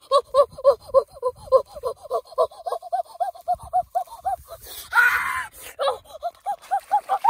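A man's rapid, rhythmic wordless vocalising, short 'ah-ah-ah' syllables about five a second, creeping slowly up in pitch, with a short rustle or splash about five seconds in.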